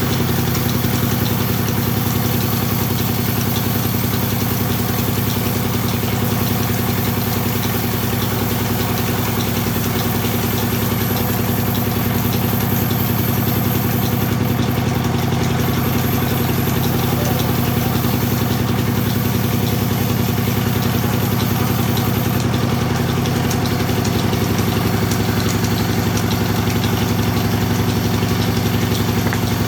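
Sawmill machine running steadily, a continuous low mechanical hum that holds its level throughout.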